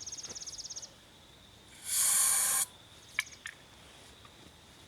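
Short blast of aerosol starting fluid sprayed into the small engine's intake, an even hiss lasting just under a second about two seconds in, followed by two small clicks. A rapid high insect trill fades out in the first second.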